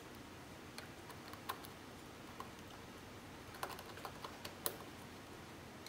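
Faint scattered clicks and taps of solid copper wire and a screwdriver being worked at the terminal screws of push-button contact blocks, more of them in the second half, the loudest near the end.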